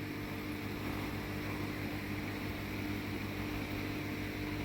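Steady mechanical hum with a constant low tone, from the pumps and aeration equipment running in a koi house.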